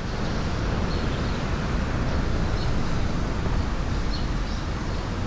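Steady outdoor background noise, a low rumble with hiss above it, holding level throughout, with a few faint short high chirps scattered through it.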